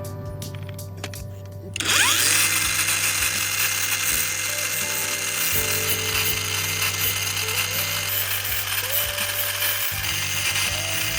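A power tool switches on about two seconds in, spinning up with a brief rising whine, then runs steadily with a loud hiss, over background music.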